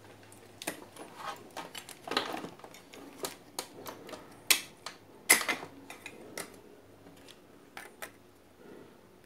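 Irregular clicks, taps and knocks as a CRT television's circuit board is handled and worked loose in its chassis, with two sharper knocks about midway.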